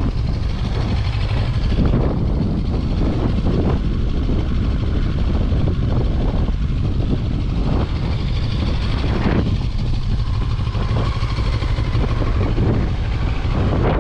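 CF Moto 650 MT's parallel-twin engine running under way, with wind rushing over the microphone.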